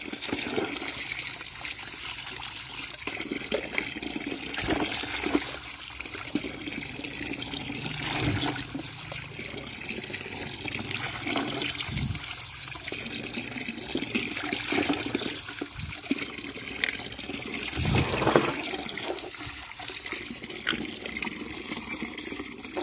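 A stream of water pouring into a plastic tub of muddy water, with splashing and sloshing as plastic toy vehicles are swished and rinsed by hand; short splashes and knocks stand out now and then over the steady pour.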